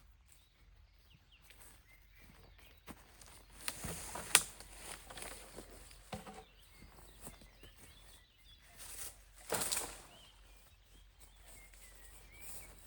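Footsteps and rustling on the forest ground in irregular bursts, loudest about four seconds in and again near ten seconds, with a few faint bird chirps.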